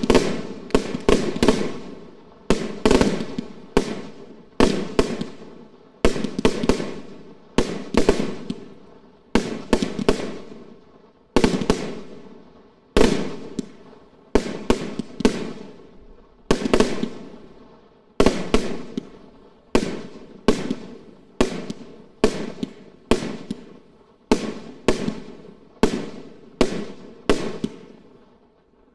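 Large professional firework display: aerial shells going off one after another in a steady barrage, about one or two sharp bangs a second, each trailing off in an echo.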